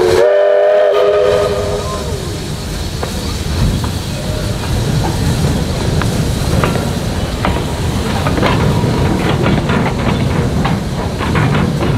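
A steam locomotive's whistle sounds one chord of several notes for about two seconds. Then come the low rumble and hiss of the engine and wagons moving, with a growing run of metallic clanks and clicks from the couplings and wheels.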